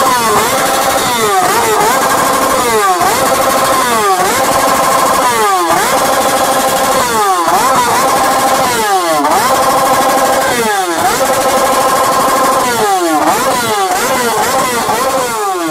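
Sport motorcycle engine revved hard again and again while standing still, each rev climbing fast, holding high for a moment, then falling back, roughly every second and a half.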